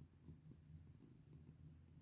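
Domestic cat purring steadily as it is scratched under the chin: a faint, low rumble.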